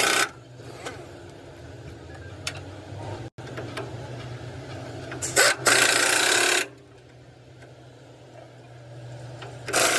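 A steady low mechanical hum from a running engine or motor. About five and a half seconds in, a loud burst of hissing noise lasts a little over a second.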